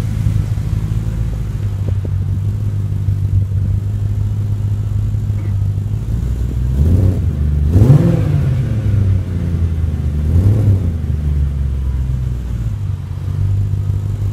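BMW E34 540i's 4.0-litre V8 running at idle through its exhaust. The throttle is blipped twice, about seven and ten seconds in, the revs rising and falling each time before settling back to a steady idle.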